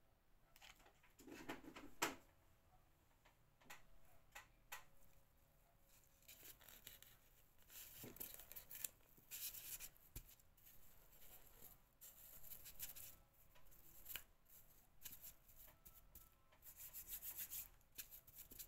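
Faint rustling and rubbing of hands working guipure lace trim, pressing it onto a headband on a foam head form. There are scattered small clicks and handling knocks, the sharpest about two seconds in.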